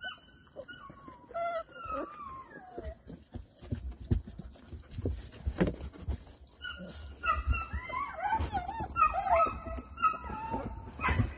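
Young puppies whining and yelping in high, sliding cries: a long falling whine in the first few seconds, then a busier run of overlapping cries near the end, with low bumps from handling underneath.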